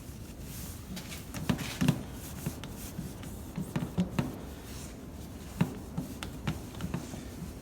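A cloth wiping and rubbing a door surface clean with isopropyl alcohol, with scattered light knocks and clicks of handling.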